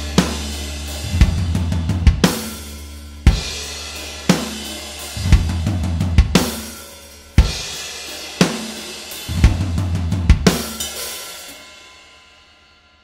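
Closing bars of a recorded rock song: full drum kit hammering crash-cymbal and bass-drum accents about once a second, with quick runs of drum strikes between them over a held bass note, then the last crash rings out and fades to silence near the end.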